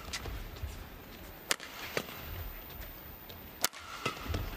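Badminton rackets striking the shuttlecock during a rally: a series of sharp hits, the loudest about one and a half and three and a half seconds in, over a low arena rumble.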